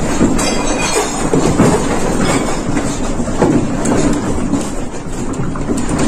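A room shaking in a strong earthquake: a loud, continuous rumble with rattling and clattering of the building and the things in it.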